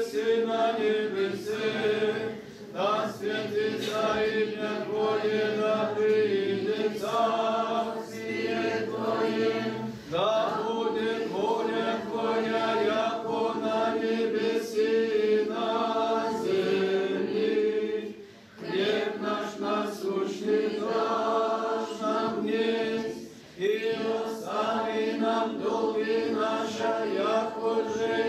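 Male choir of boys and young men chanting Greek Orthodox Byzantine hymnody a cappella, the melody moving over a steady held drone note, with brief breaks between phrases.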